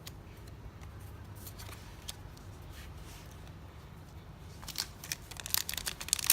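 Yu-Gi-Oh trading cards being handled with faint soft ticks, then from about four and a half seconds in a run of sharp crinkling, crackling clicks as a foil booster pack wrapper is handled and torn.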